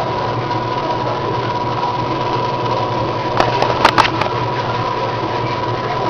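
Enxuta washing machine running on a newly replaced drive belt: a steady motor hum with a constant whine. A quick cluster of sharp clicks comes a little past halfway.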